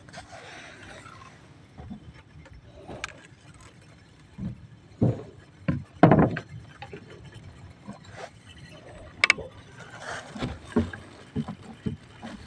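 Fishing tackle being handled in a small boat: scattered clicks and knocks from a spinning rod and reel, with two heavier knocks about five and six seconds in.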